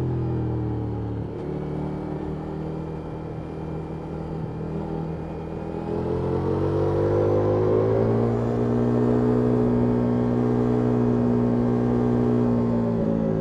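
Ducati Multistrada V4S's V4 engine through an Akrapovic exhaust, heard onboard while riding. The revs fall off the throttle in the first second and stay low and quieter for several seconds. About six seconds in the engine accelerates, its pitch rising, then holds at higher revs and drops sharply near the end.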